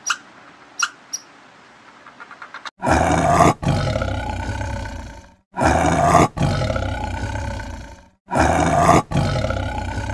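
A few short, high squeaks, then, about three seconds in, a big cat roaring: three long, loud, drawn-out roars, each breaking off briefly after its strong start and then trailing away.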